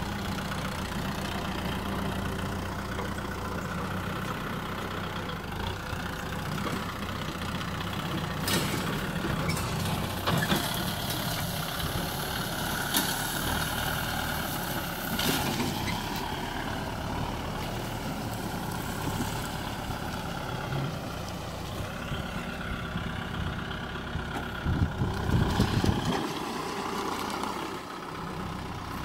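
Kubota M6040SU tractor's four-cylinder diesel engine running steadily as it tows a trailer over rough ground, with a few sharp knocks around the middle and a heavier low rumble near the end.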